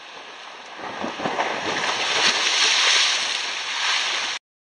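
Wind rushing over the microphone together with shallow water washing, an even rushing noise with low buffeting that swells over the first couple of seconds and eases a little near the end.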